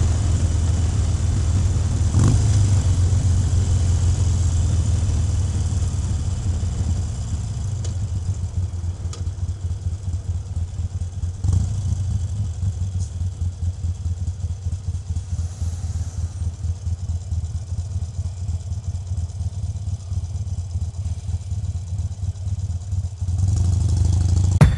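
Harley-Davidson Iron 883's air-cooled V-twin engine running. From about seven seconds in it settles into a slower, pulsing beat, with a brief knock or two.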